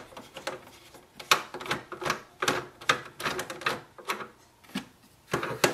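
Irregular plastic clicks and rattles from the housing of an Epson EcoTank ET-3830 printer being handled and unscrewed as its top plate is removed.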